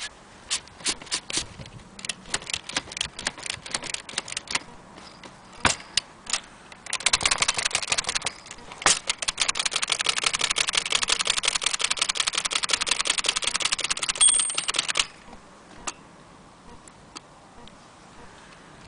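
Blickensderfer Featherweight aluminium typewheel typewriter being typed on. Separate keystrokes come first, then about eight seconds of fast, continuous key strikes with a short high ring near the end, then a few scattered clicks.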